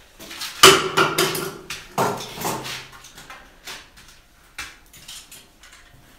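Two sharp knocks with a short metallic ring, about half a second and two seconds in, followed by a few lighter clicks and taps: hand tools such as a metal caulking gun being handled and set down on a wooden work table.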